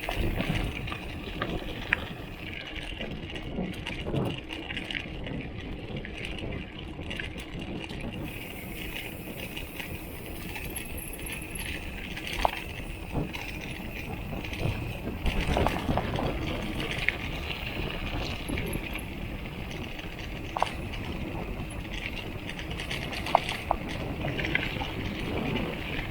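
Bottle cage on a Giant XTC mountain bike rattling and clinking during a ride, over the steady rolling noise of the bike on the trail, with irregular sharp ticks scattered through.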